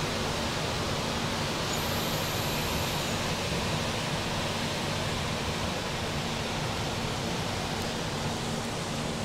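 Steady rushing noise with a low rumble underneath, from a moving passenger train.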